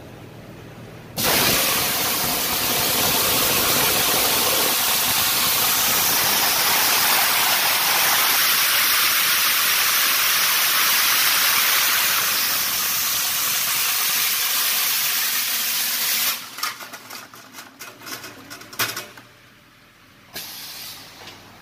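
Onion peeling machine running with a loud, steady rush of air as it strips the skins, starting about a second in and cutting off sharply after about fifteen seconds. Irregular clattering knocks follow.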